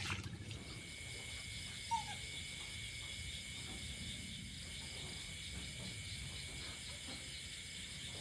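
Night insect chorus, a steady shrill trilling in several high pitches, with one short faint chirp about two seconds in.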